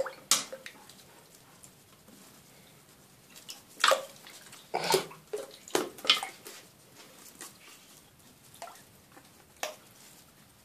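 Shallow water in a plastic basin splashing and dripping as hedgehogs paddle in it and a hand washes them: short irregular splashes, the loudest cluster about four to six seconds in.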